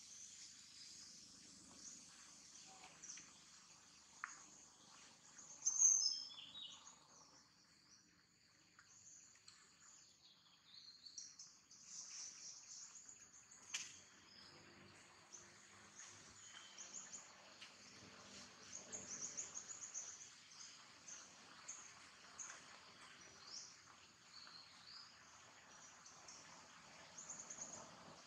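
Outdoor ambience of birds chirping over a steady high insect chorus, faint throughout, with one brief louder high-pitched call about six seconds in.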